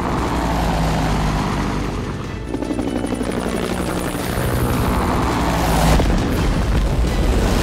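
Cartoon helicopter sound effect: the rotor chopping over a deep, steady rumble, with background music.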